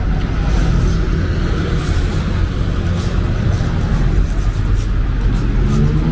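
Road traffic on a city street: a steady low rumble of car engines and tyres passing. Near the end one vehicle's engine begins to pull away, its pitch rising.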